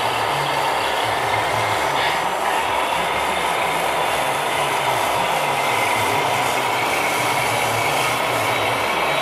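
Radio-controlled scale model trucks driving on the layout: a steady mechanical whir with a wavering low rumble.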